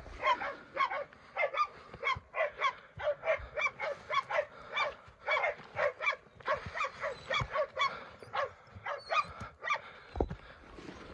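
Pig-hunting dogs barking steadily, about two or three barks a second: bail-up barking, the dogs holding a wild pig at bay. The barking stops about ten seconds in.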